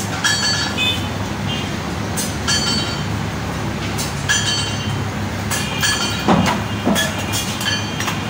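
Butchers' knives and cleaver striking, giving about a dozen irregular sharp metallic clinks that each ring briefly, over a steady low rumble.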